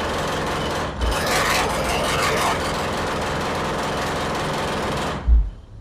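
Jackhammer hammering continuously into concrete, with a heavy engine running underneath; the hammering pauses briefly about a second in and stops shortly before the end.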